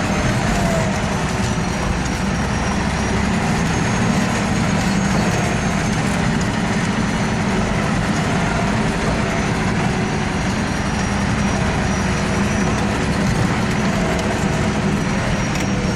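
Off-road vehicle's engine running steadily under load as it crawls through a forest.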